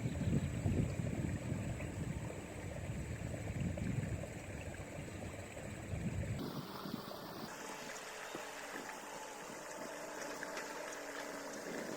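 Outdoor ambience by the water: wind buffeting the microphone as an uneven low rumble, then an abrupt change about six seconds in to a quieter, steady hiss.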